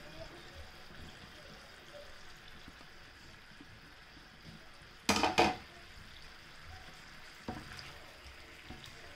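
Chicken wings sizzling in oil in a frying pan as a silicone spatula moves them. A brief loud clatter comes about five seconds in, and a lighter knock a couple of seconds later.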